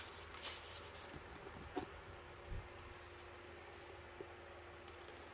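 Thin Bible-paper pages being turned by hand: a few faint rustles and soft handling noises in the first half, then only faint room tone.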